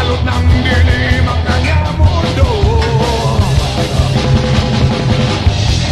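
Rock music with a singing voice over a heavy, steady bass beat.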